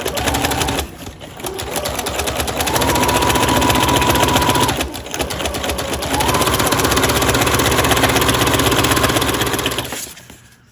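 Electric sewing machine with a walking foot, stitching through paper envelopes in fast, even strokes with a motor whine. It stops briefly twice and speeds up again each time, its whine rising in pitch, then stops near the end.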